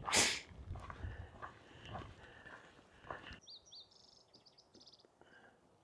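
A brief whoosh right at the start, then faint footsteps on a dirt trail. About halfway through, a small bird gives a few high chirps and a quick run of short high notes.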